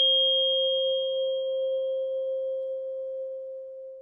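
A struck tuning fork ringing one pure, steady tone that slowly fades away.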